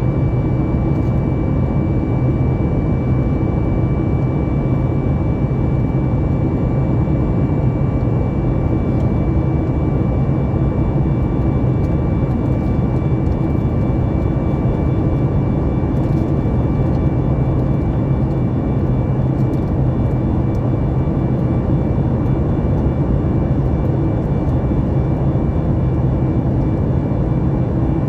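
Cabin noise of a Boeing 737 MAX 9 airliner with CFM LEAP-1B turbofan engines, heard from a window seat: a steady, unchanging drone of engine and airflow with a faint, even high whine running through it.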